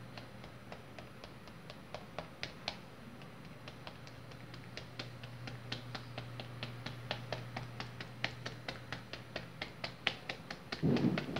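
Quick light taps of a plastic modelling tool pressing hair lines into a sheet of black cold-porcelain (biscuit) dough on a tabletop, sparse at first and about four a second in the second half, over a steady low hum. A brief louder sound near the end.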